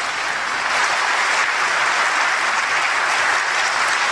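A large audience applauding: a steady, dense clapping that swells slightly about a second in.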